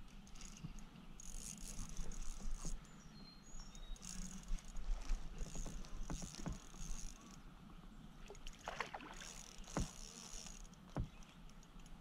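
Water lapping around a small kayak, with a few sharp knocks on the hull. In the background, a high insect buzz from Brood X periodical cicadas swells and fades.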